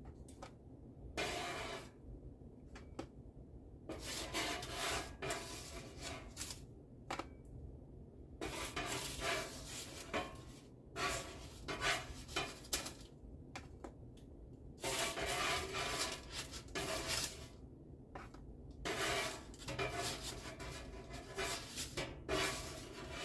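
Spatula scraping baked cookies off a cookie sheet: a run of separate scrapes, each about a second or two long, with short pauses between.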